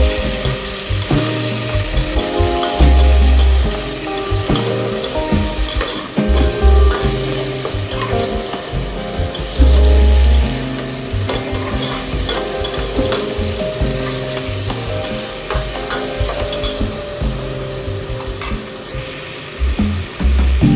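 Diced tomatoes sizzling in hot oil in a metal pot while being stirred, with a few sudden louder bumps along the way.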